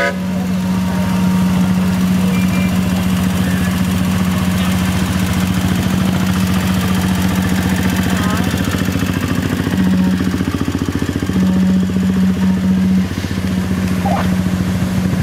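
Small engine of a ride-on scale diesel switcher locomotive running steadily as the train passes close by, with a low hum that drops out briefly about two-thirds of the way through.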